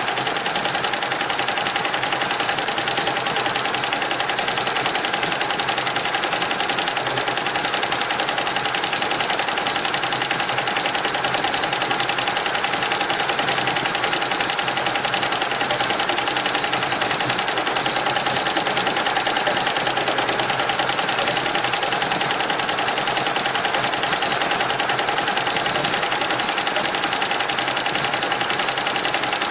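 Richpeace roll-to-roll embroidery machine stitching at speed: a fast, steady rattle of the needles too quick to count, with a constant hum beneath.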